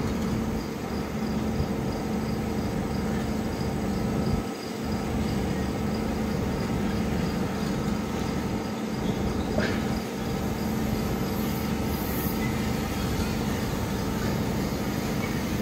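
Electric gear motor of a VFD speed-controlled khoya-making machine running its agitator at raised speed in an empty stainless steel pan: a steady mechanical hum.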